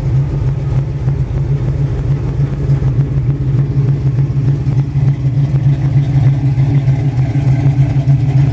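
1951 Chevrolet pickup truck's engine idling steadily, with a low, even, pulsing note.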